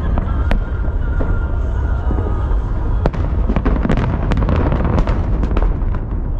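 Aerial fireworks display: shells bursting in a continuous deep booming rumble, with a dense run of sharp crackles from about three to six seconds in.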